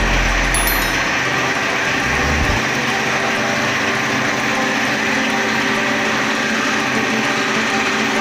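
Steady machine hum with a constant whir. A low rumble under it drops away about two and a half seconds in.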